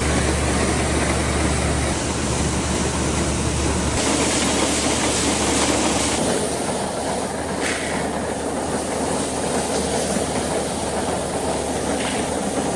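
Grain-dryer machinery on a vintage SuperB grain dryer switched on, starting abruptly and running loudly and steadily. A low hum eases about four seconds in.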